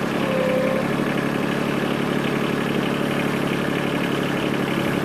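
Yanmar SC2450 compact tractor's three-cylinder diesel engine running steadily at idle, heard from the operator's seat. A short faint whine rises over it about half a second in.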